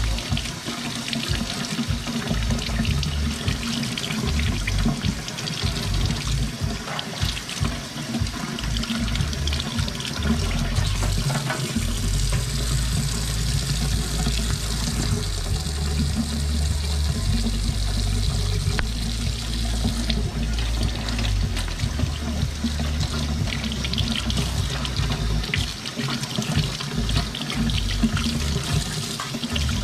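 Kitchen faucet running into a stainless steel sink, the stream splashing over snow crab legs as they are rinsed by hand.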